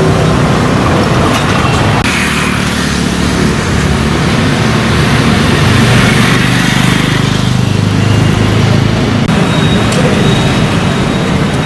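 Steady road traffic noise on a city street: vehicle engines and tyres running continuously with a low rumble underneath.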